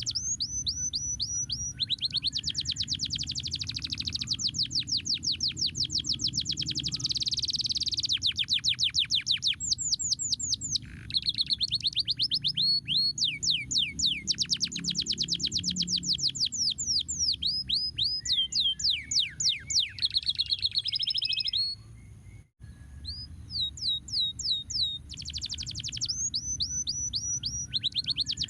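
Domestic canary singing a long, continuous song of rapid trills: strings of quick repeated notes, each sweeping down in pitch, changing from one run to the next. The song breaks off briefly once, past the middle, and there is a low steady hum underneath.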